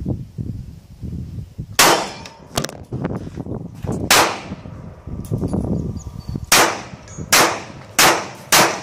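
Semi-automatic pistol fired six times, each a sharp crack with a short ringing tail. The first shots come about two seconds apart, then the last four follow quickly, about every half second to a second.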